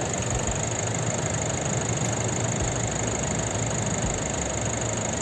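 Nissan Navara engine idling steadily, an even low running sound with no change.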